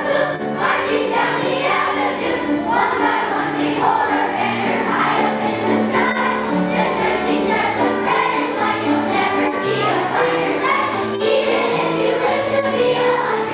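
Children's choir singing a patriotic song in unison, with accompaniment underneath.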